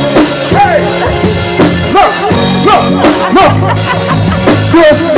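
Loud music with a steady percussive beat and a voice over it.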